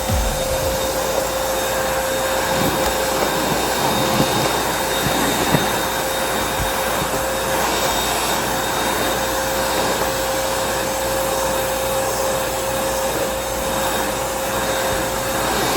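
Bagged vacuum cleaner running steadily, with a constant whine over its airflow noise, as it vacuums up paper confetti from the floor.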